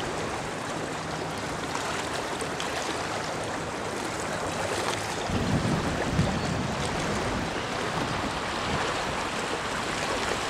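Fast-flowing river in flood rushing beneath a road bridge: a steady noise of running water, with a few low bumps about halfway through.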